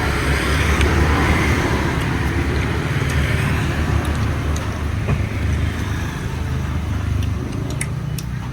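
Road traffic: a motor vehicle's engine running close by, its noise swelling in the first second or two and then easing off, over a steady low hum.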